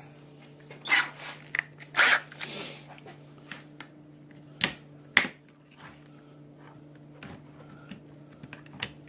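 Handling noises of tools and PVC duct on a workbench: a few brief scraping rustles, then two sharp clicks about half a second apart, over a faint steady hum.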